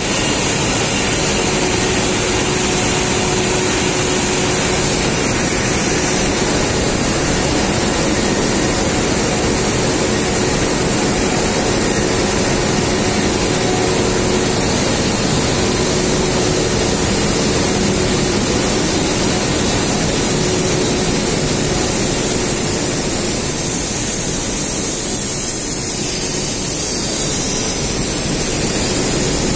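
Steady, loud noise of a running Supertec Cat 5/Cat 6 cable filler extrusion line, with its extruder and take-up capstans working, and a faint steady tone under it.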